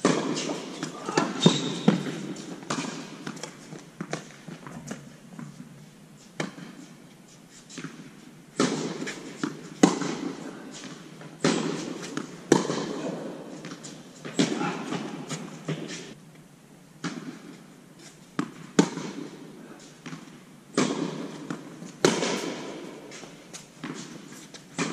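Tennis rally: a tennis ball struck back and forth by rackets and bouncing on a hard court, a sharp pop about every one to two seconds, each one echoing in a large indoor hall.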